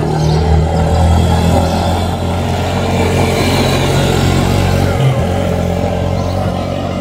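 Small quad bike engine running steadily as the quad rides past and away along a dirt track. The engine note is loudest about a second in and fades slowly after that.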